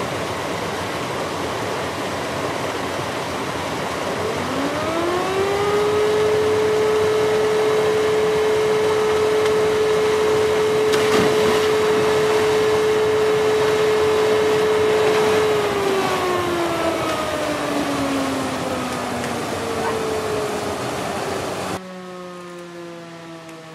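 A fire-alarm siren winds up about four seconds in, holds one steady tone for about ten seconds, then slowly winds down, over the steady rush of a mountain stream and waterfall. Near the end the water sound cuts off while the siren keeps falling in pitch.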